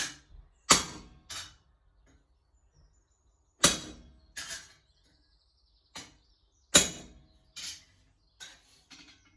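Blacksmith's hammer striking a hot-cut chisel or hardy through a steel bar on an anvil, about a dozen sharp blows spaced irregularly, each with a short metallic ring. The bar is being cut part-way so the latch back plates can be snapped off.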